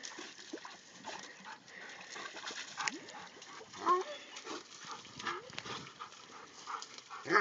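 Cur dogs giving a few short, soft whines, the loudest about four seconds in, among small clicks and rustles.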